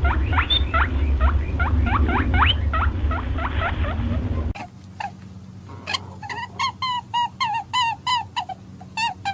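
Animal calls from two separate clips. First comes a series of quick rising squeaks, about three a second, over a loud low rumble. After a sudden cut about four and a half seconds in come short repeated calls, about two a second.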